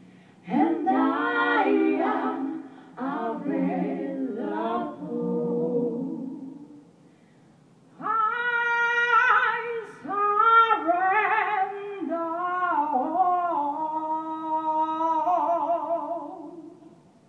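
Female gospel vocal trio singing a cappella. A lower phrase gives way to a short pause about seven seconds in, then a higher phrase with long held notes that fades near the end.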